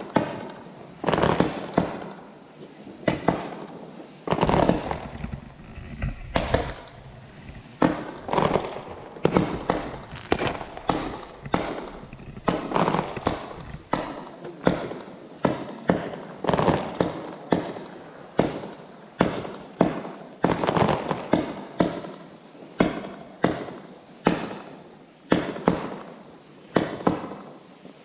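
Fireworks display bursting: a steady volley of sharp bangs, about one or two a second, each trailing off before the next.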